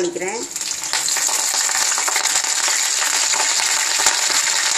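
Curry leaves sizzling and crackling as they are dropped into hot oil for tempering. The hiss starts about half a second in, grows a little louder, and then holds steady.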